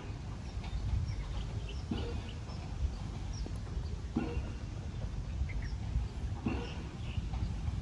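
Outdoor ambience: wind rumbling on the microphone, with birds calling. A short sound repeats about every two seconds.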